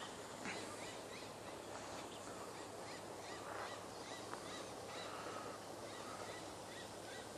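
Faint outdoor pond ambience: a steady hiss with short bird calls now and then.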